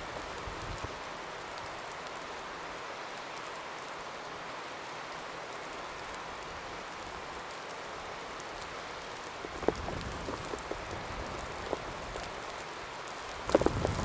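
Steady hiss of a snowstorm, wet snow falling around the microphone. A few short knocks and rustles come about ten seconds in, and more just before the end.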